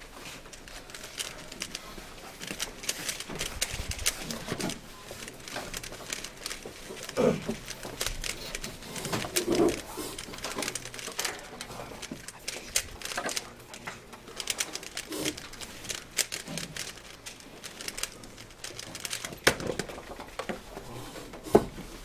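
3x3 Rubik's cube being turned fast by hand, a dense run of plastic clicks and clacks as its layers snap round, with a sharp knock near the end.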